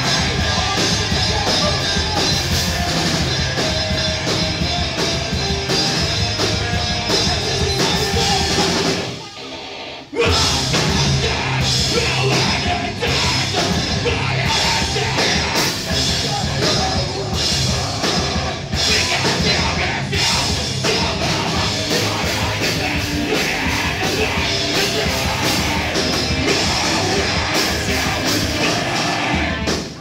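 Live rock band playing loud and heavy, with electric guitar, bass guitar and drum kit, and a vocalist yelling into a microphone. About nine seconds in the band drops out for about a second, then crashes back in.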